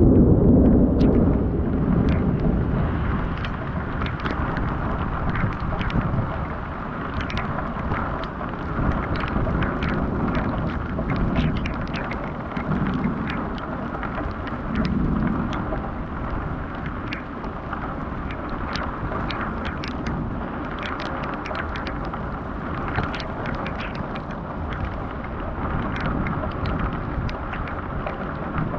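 Thunderstorm: a loud low rumble of thunder at the start fades over the first few seconds, and weaker rumbles swell again about 10 to 16 seconds in. Steady rain noise runs under it, with many sharp taps of drops.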